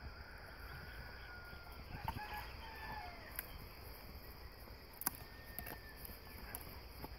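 A golden retriever and a Labrador chewing on a wooden stick, giving scattered sharp cracks and clicks of teeth on wood; the sharpest comes about five seconds in. A chicken calls faintly in the background.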